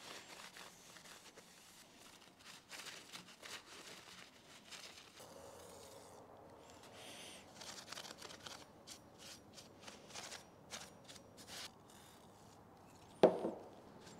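A shop rag rubbing and wiping a steel planer blade and blade carriage, with scattered small clicks and scrapes of metal parts handled on the bench. About a second before the end, a single sharp knock with a short ring, as a metal part is set down.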